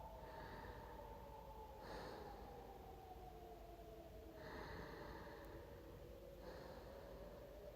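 Faint breathing from an injured woman, four short breaths, over a low, slowly wavering howl of blizzard wind.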